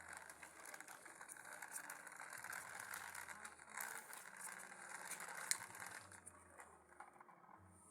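Faint, dense crackling and clicking with one sharper click, dying away about six seconds in.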